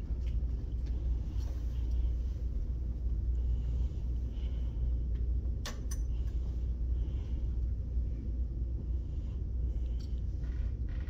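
A steady low rumble of room noise, with soft rustling of bedding and a gown and two sharp clicks, one about halfway through and one near the end, as a patient manikin is rolled onto its side in a hospital bed.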